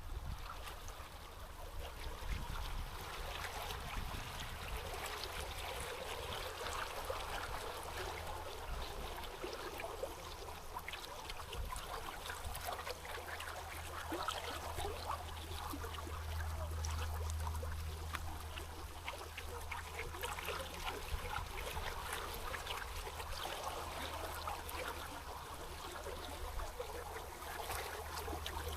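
River water flowing and babbling steadily, with a low rumble underneath.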